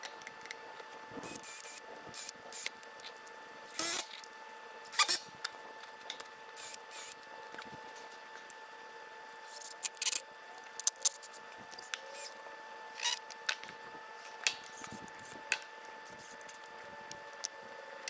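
Scattered clicks, knocks and rattles of hand work on a wooden pen frame and wire cattle panel, the loudest about 4, 5 and 10 seconds in, over a faint steady tone.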